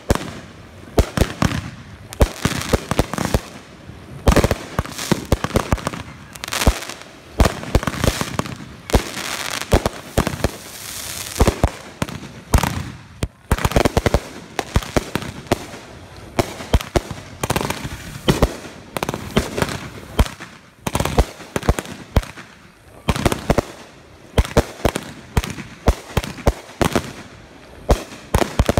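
Consumer fireworks going off in rapid succession: a dense run of bangs and crackling bursts, with a few brief lulls.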